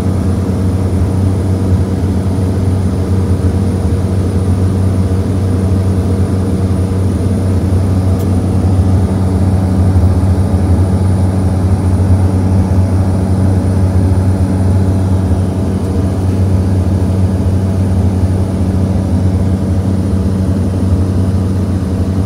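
Cessna 208 Caravan's single Pratt & Whitney PT6A turboprop and propeller droning steadily in flight, heard from inside the cabin: a loud, even low hum with a thin, steady high whine above it.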